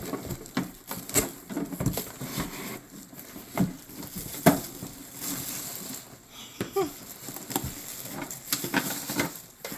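Unboxing handling: irregular knocks, clicks and rustles as packaging and the parts of a new espresso machine are moved about, with one louder knock about halfway through and a brief squeak later on.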